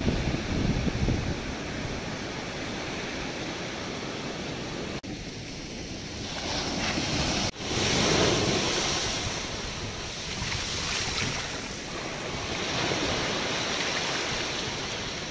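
Ocean surf: waves breaking and washing up the sand, swelling louder as each wave comes in.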